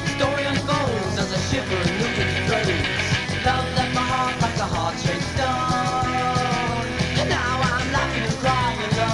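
Rock music: a band playing, with held and sliding notes over a steady beat.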